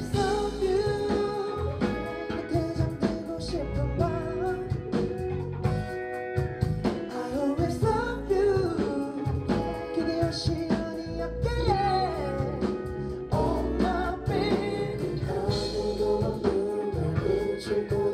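Male vocals sung live into microphones over a band with drum kit and electric guitar: a pop song performed live.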